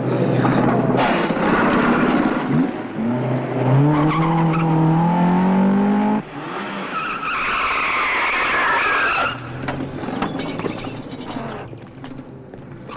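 Car engine revving hard, its pitch climbing through the gears, then cutting off suddenly; a couple of seconds later tyres squeal for about two seconds as a car brakes or swerves hard, with road and engine noise around it.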